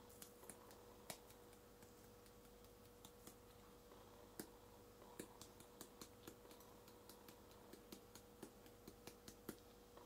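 Faint, irregular sharp clicks, a few a second, of a pepper grinder cracking black peppercorns, over a faint steady hum.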